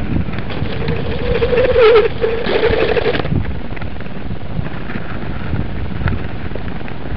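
Inline skate wheels rolling along a path, first on asphalt and then on block paving, a steady rumble with wind on the microphone. A humming tone comes in about a second in and stops about three seconds in.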